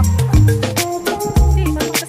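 Background music with a steady drum beat, a heavy bass line and a stepping melody.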